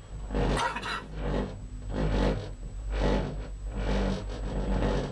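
Gondola cabin running on its cable, a steady low rumble with rasping, scraping swells about once a second as it nears a support tower.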